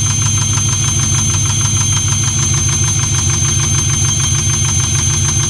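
GM LS1 5.7-litre V8 idling steadily with a rhythmic knock, about six a second, which the owner cannot place as either rod knock or a collapsed lifter.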